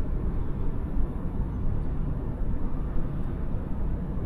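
Steel mill industrial noise recorded high under the roof of a converter hall, in the secondary metallurgy area: a deep, steady din of plant machinery with no distinct knocks or events.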